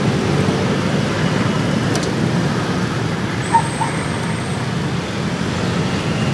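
Motor scooters and cars driving across a railway level crossing, their engines running steadily as they pass close by, with a brief high chirp a little past halfway.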